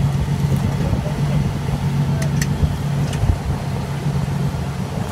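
Pickup truck engine idling nearby, a steady low hum.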